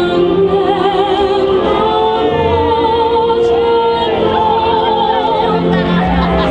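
A woman singing sustained notes with strong vibrato, over musical accompaniment.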